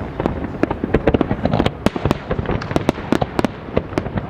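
Fireworks display going off: a dense, continuous run of bangs and crackling reports, several a second.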